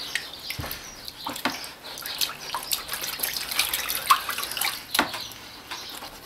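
Green scouring pad scrubbing the rusty blade of a pair of garden shears in a tub of shallow water: uneven scratchy strokes and water splashes, with many small clicks.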